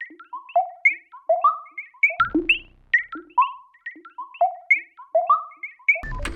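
Background music: a synthesizer melody of short plucked notes, several a second. A denser, fuller section begins near the end.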